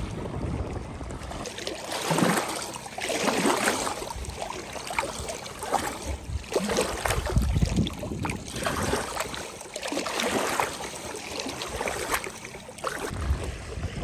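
Lake water lapping and splashing in irregular surges, with now and then a low slap.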